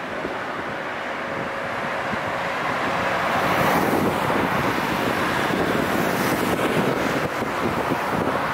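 Steady rush of city road traffic, swelling louder about three to four seconds in as vehicles pass.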